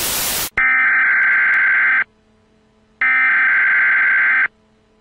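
Static hiss that cuts off after half a second, then an emergency broadcast alert tone: a steady electronic beep about a second and a half long, sounding twice with a second's gap between.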